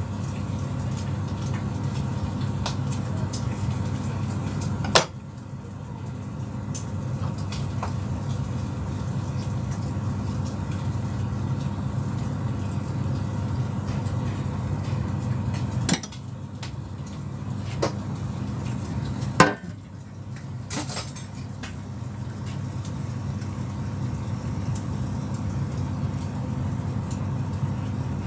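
Steady low hum of kitchen equipment, broken by a few sharp knocks and clatters of dishes and utensils, about 5 seconds in, about 16 seconds in and about 19 seconds in.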